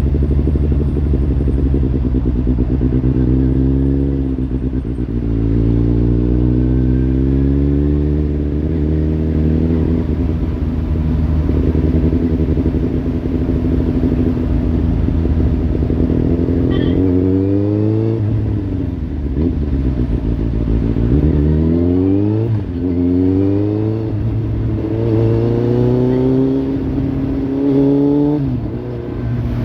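Kawasaki Z800's inline-four engine through a Lextek slip-on exhaust, running loud and revving again and again: the pitch climbs and then drops sharply several times, more often in the second half.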